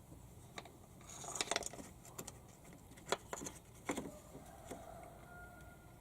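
Faint, scattered clicks and light knocks of a plastic cover in a 2007 Toyota Sienna's engine bay being handled and fitted back into place over the oil pressure switch, with a short cluster of rattles about a second in and sharper single knocks around three and four seconds.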